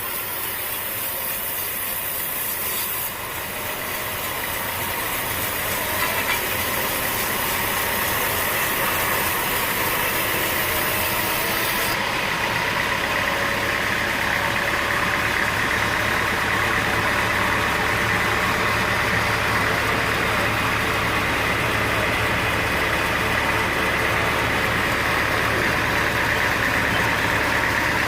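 Sawmill machinery running steadily, an engine-driven saw with a constant machine hum. The sound shifts abruptly about three and twelve seconds in, and a low hum joins at the second change.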